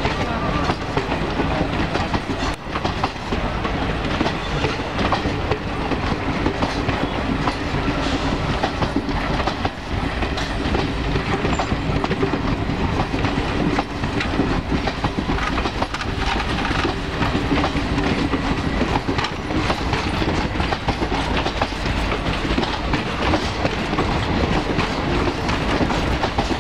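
Passenger coaches of an express train rolling past, their wheels clattering over the rail joints in a steady run of clicks and knocks.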